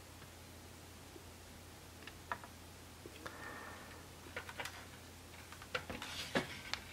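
Faint clicks, taps and rustling of a hand handling a 1/18 scale Bburago LaFerrari diecast model and setting it down on a display turntable, over a steady low hum. The taps cluster in the last couple of seconds.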